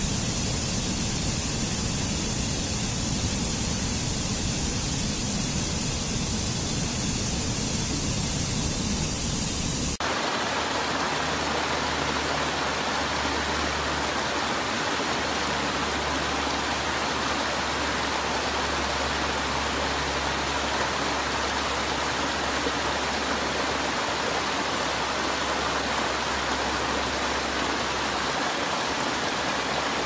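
Steady rush of stream water cascading over rocks and small falls. About ten seconds in, the sound switches abruptly to a brighter, fuller rush of water.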